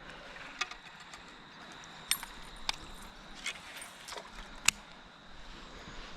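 A few light, sharp clicks and taps of fishing tackle being handled in a kayak over a low hiss, the sharpest about three quarters of the way through.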